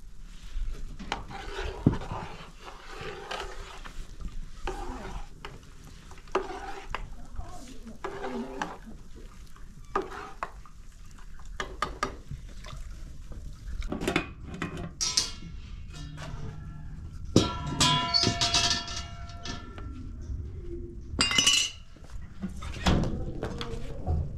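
Wooden pestle pounding in a tall wooden mortar, one knock every second or two. In the second half, metal dishes clink and ring.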